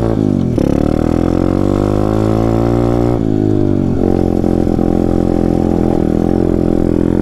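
Taotao DB17 125 pit bike's single-cylinder four-stroke engine running under riding load. The revs fall sharply about half a second in, climb steadily for a couple of seconds, fall again around three seconds in, then hold fairly steady, as when the rider shifts and rolls the throttle.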